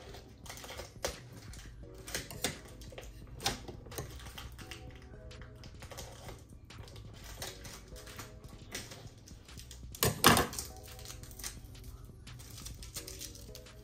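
Crinkly plastic packaging of a family pack of chicken drumsticks being handled and separated into smaller packs: a run of small clicks and crackles, with a louder pair of crackles about ten seconds in. Soft background music underneath.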